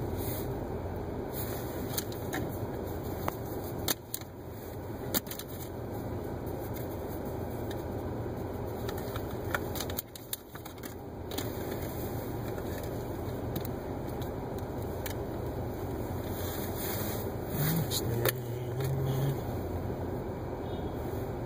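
Steady low noise inside a car waiting in stopped city traffic, with scattered sharp clicks and a brief low tone near the end.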